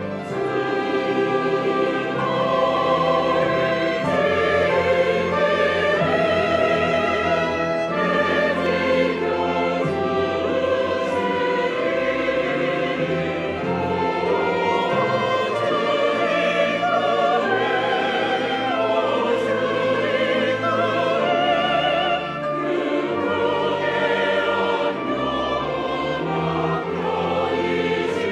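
Church choir singing a sacred anthem in full harmony with instrumental accompaniment, the voices sung with vibrato.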